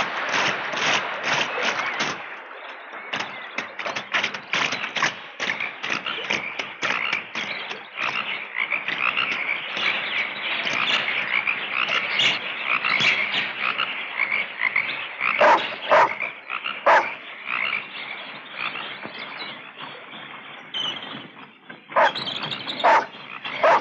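Chorus of frogs croaking, a dense run of rapid repeated calls, with a few louder single croaks standing out in the second half.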